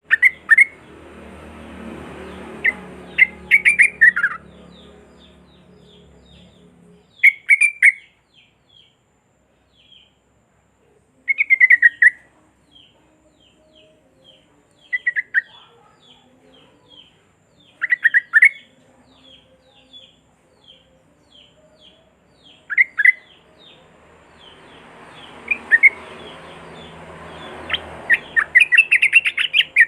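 Yellow-vented bulbul (trucukan) singing: short bubbly, falling phrases every few seconds, with soft quick chips in between, and the phrases crowding into a rapid run near the end.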